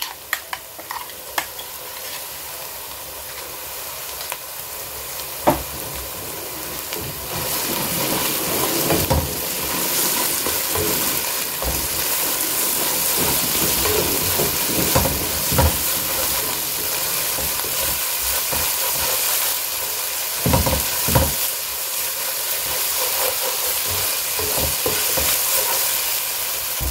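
Chilli-garlic paste frying with onions in a non-stick pan, sizzling steadily and getting louder after the first several seconds. A wooden spatula stirs it, scraping and knocking against the pan several times.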